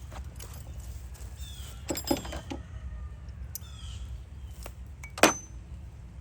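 Metal clinks and clicks of hand tools and parts being handled at the engine: a few knocks about two seconds in and one sharp metallic click about five seconds in, over a steady low rumble, with faint bird chirps in the background.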